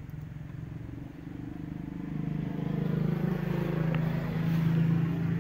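A motor engine running with a steady low hum, growing louder over the last few seconds.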